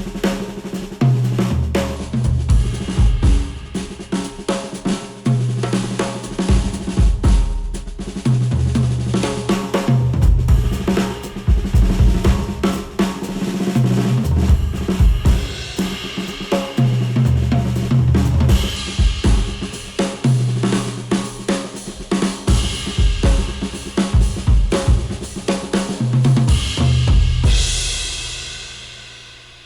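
Instrumental music with a drum kit (kick, snare, hi-hat and cymbals) and a stepping bass line, played through a HIFIMAN planar-magnetic headphone and picked up by measurement microphones. The track fades out near the end.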